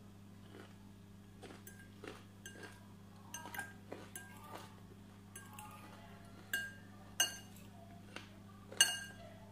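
Metal fork clinking against a glass salad bowl while scooping and stirring the salad: a string of light clicks, then three louder ringing clinks in the last three seconds. A steady low hum runs underneath.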